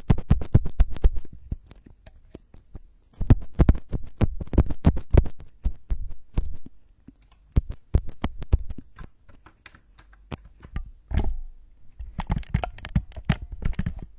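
Rapid close-miked tapping and clicking in bursts of quick strokes with short pauses between them, an ASMR trigger sound.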